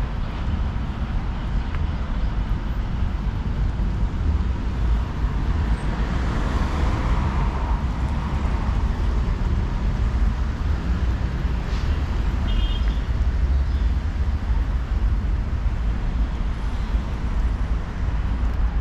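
Steady road traffic noise with a deep rumble, swelling a little near the middle as a vehicle goes by.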